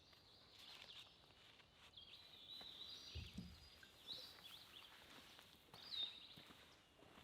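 Faint bird chirps, a few short calls bending in pitch spread several seconds apart, over a near-silent outdoor background, with one soft low thump about three seconds in.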